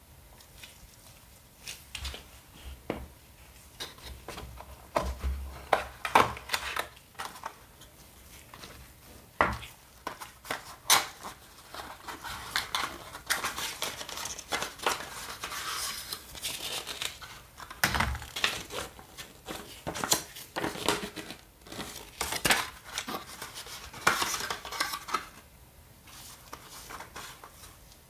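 Gloved hands handling a smartphone's unboxed packaging: cardboard box parts and tray tapped and set down on a wooden surface, and plastic wrapping crinkling. Irregular clicks and taps, with a few soft thuds and longer crinkling stretches in the middle.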